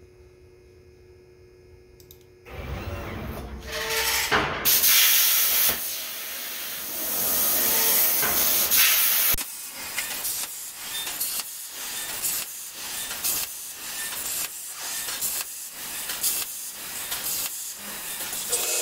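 Faint electrical hum, then about two and a half seconds in a CNC plasma cutter's torch starts hissing loudly as it cuts sheet metal; from about nine seconds on the hiss pulses roughly twice a second.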